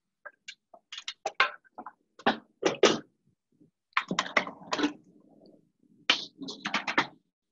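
Handling noise in a kitchen: clusters of sharp clicks, knocks and clatter while the phone camera is picked up, moved and set down over the counter.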